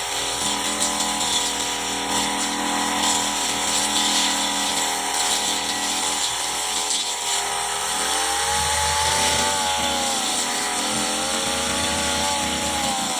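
Petrol brush cutter engine running at high revs while cutting grass, its pitch sagging under load about midway and picking back up.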